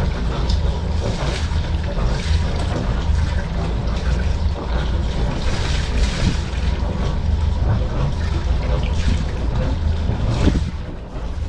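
Wind gusting over the microphone in an uneven, buffeting rumble, easing a little near the end.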